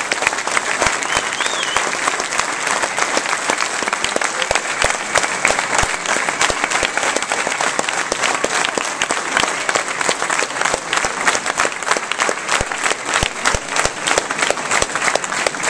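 Large crowd applauding steadily, a dense unbroken mass of claps, with sharp hand claps close to the microphone.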